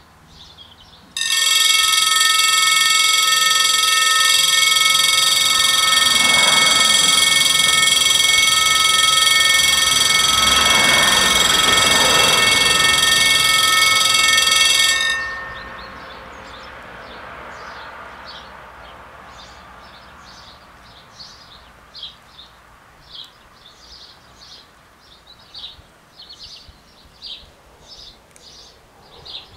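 French level crossing's two electronic warning bells start about a second in and ring loudly and steadily while the barriers lower, then cut off about halfway through. Two swells of rushing noise rise and fade under the ringing. Birds chirp for the rest of the time.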